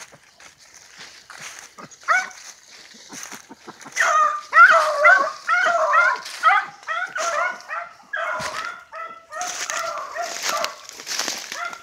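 Beagles baying in a quick run of short, yelping cries that start about two seconds in and go on throughout, with dry leaves and brush rustling as someone pushes through the undergrowth.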